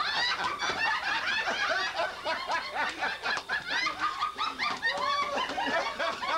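A group of people, mostly women, laughing together, many voices overlapping.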